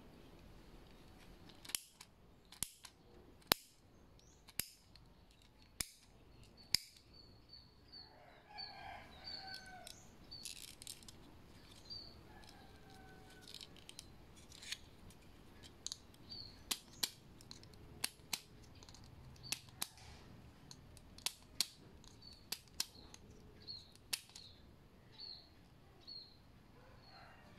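Shimano ST-TX30-7R seven-speed indexed thumb shifter clicking as its lever is worked through the gear positions: sharp single clicks, irregularly spaced and from under a second to about a second and a half apart.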